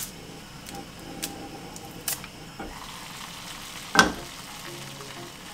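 Steady hiss from a covered saucepan of water heating on a gas stove, with a few light clicks and one louder metallic clatter of the pan's lid about four seconds in.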